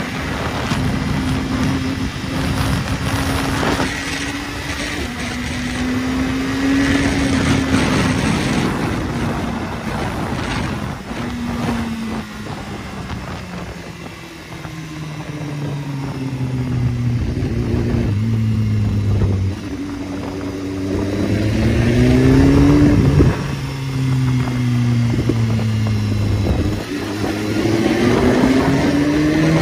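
Sport motorcycle engine heard from the rider's seat, its pitch rising and falling as the rider works the throttle. It eases off and goes quieter about halfway through. It then pulls hard, the rising pitch dropping back sharply twice as the rider shifts up, and climbs again near the end.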